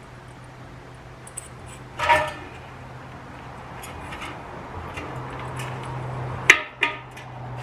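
Small metal ceiling-fan parts clinking and rattling as they are handled, with two louder knocks, one about two seconds in and one near the end, over a steady low hum.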